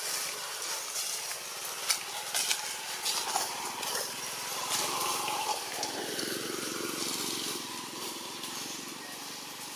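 Outdoor ambient noise with a distant engine swelling and fading in the middle, and a few sharp clicks.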